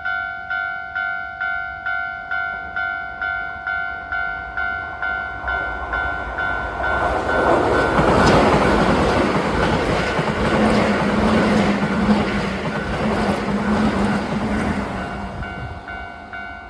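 Japanese level-crossing alarm bell ringing about twice a second while a Keisei 3700-series train passes at speed. The train's running noise swells over the bell from about six seconds in, stays loud for several seconds and fades near the end, leaving the bell clear again.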